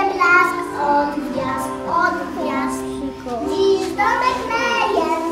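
A young boy singing a Christmas carol solo, his voice gliding between held notes.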